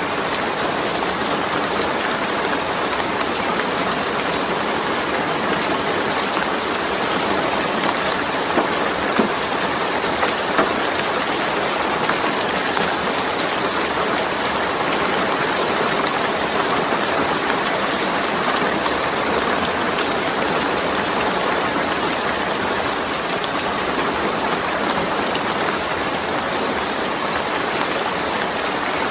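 Steady rain falling on a zinc roof, a dense even patter of drops with a few slightly louder hits now and then.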